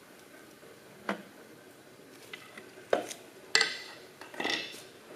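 A few sharp metal-on-metal clinks and knocks as a connecting rod is pulled back onto its crankpin in a John Deere 4020 six-cylinder engine block. The loudest comes about three and a half seconds in, and the last, near the end, rings briefly.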